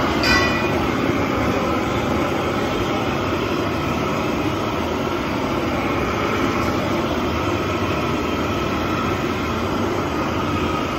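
Steady rushing hiss and roar of MAG welding along a seam in a steel tank wall. A brief high whine sounds just after the start.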